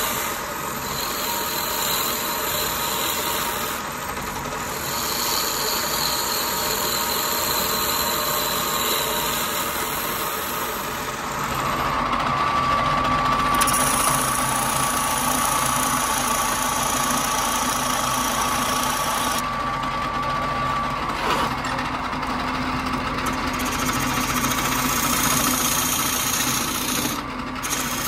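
Wood lathe running with the workpiece spinning, a hand-held turning tool cutting the wood and then a spade bit boring into its end grain. A steady high tone comes in about eleven seconds in and stops about ten seconds later.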